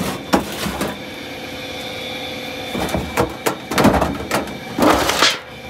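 A metal biscuit tin being handled and its lid worked off: a series of scrapes and knocks, the loudest about four to five seconds in, over a faint steady hum.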